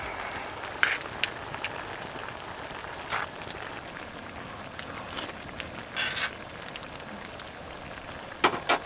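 Steady hiss of rain falling on the tarp, with a few scattered short clicks and knocks, the loudest a quick pair near the end.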